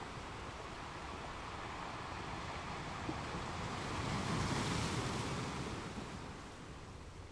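Ocean surf: a steady wash of breaking waves that swells to its loudest about four to five seconds in, then fades.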